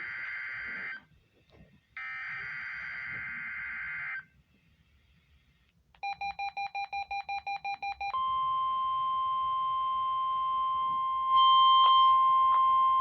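NOAA Weather Radio weekly test alert from a weather radio's speaker. It starts with two roughly one-second bursts of screeching digital header data, separated by a short gap. About two seconds of rapid beeping follow, about seven beeps a second, and then the steady 1050 Hz warning alarm tone, which gets louder about three seconds after it starts.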